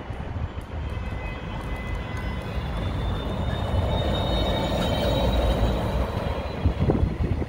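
Renault Trucks D Wide Z.E. battery-electric garbage truck driving past, with no diesel engine sound: tyre noise and rumble growing louder as it passes about four to six seconds in, with a faint high electric drive whine rising slightly in pitch. A few knocks near the end.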